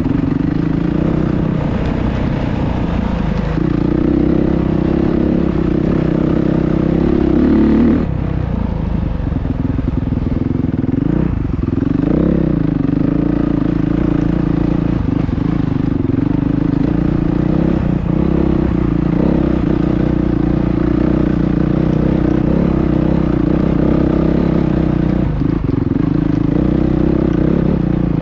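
Motocross bike engine running under load as it climbs a rocky trail, heard from on the bike. The revs climb and then drop sharply about eight seconds in, and rise and fall again a few seconds later.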